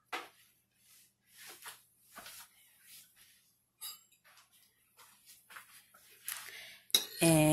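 Faint, soft scattered rustles and taps of hands handling biscuit dough on a metal baking sheet, with one sharp click partway through. A voice speaks near the end.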